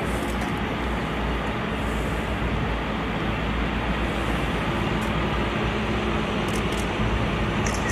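Convoy of armoured military vehicles driving by on a dirt road: a steady rumble of engines and tyres.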